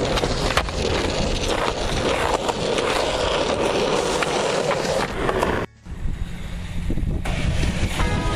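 Skateboard on concrete: wheels rolling, with sharp clacks from the tail popping and the board landing, over background music. The sound cuts out briefly about six seconds in, then the rolling picks up again.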